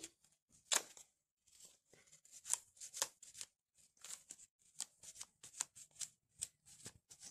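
A sponge dabbing paint through a stencil onto a cloth bag: an irregular string of short, quiet pats and scuffs, a few a second.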